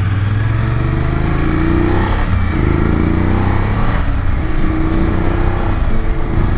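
BMW F750GS's parallel-twin engine accelerating through the gears while riding: the engine note climbs, drops at each upshift, and climbs again several times.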